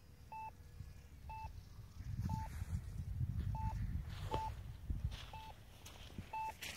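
Short electronic beeps, one pitched tone repeating about once a second, from the radio-control gear of a model jet that has just landed. A low rumble swells in the middle, with a sharp click about four and a half seconds in.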